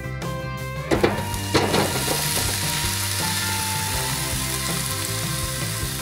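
Oiled, seasoned sausage, shrimp, zucchini and pepper pieces are tipped into a preheated air fryer basket. They clatter in twice, about a second and a second and a half in, then give a steady sizzle over background music.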